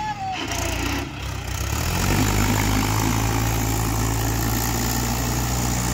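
Mahindra 575 XP Plus tractors' four-cylinder diesel engines running under load while pulling against each other on a rope, revving up about two seconds in and then holding a steady drone.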